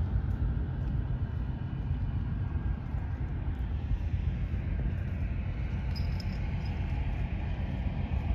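Wind buffeting the phone's microphone: a heavy, fluctuating rumble. A faint distant hum grows slightly from about halfway through.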